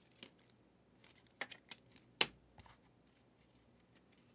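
A few light clicks and taps from small objects handled on a desk, the sharpest about two seconds in, over quiet room tone.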